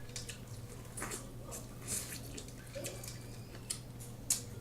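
Scattered wet clicks and smacks of someone eating seafood-boil crab legs: shells and messy food handled and chewed between sentences.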